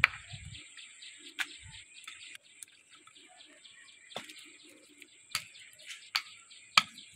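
Sharp knocks of a flat broken tile piece striking on stony ground, about six of them, the loudest right at the start and near the end. Birds chirp in a steady rhythm behind them, with a steady high whine.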